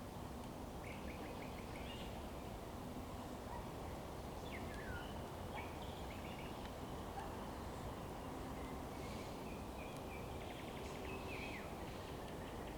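Small birds singing and calling, with short chirps, trills and a few falling whistles, over steady low outdoor background noise.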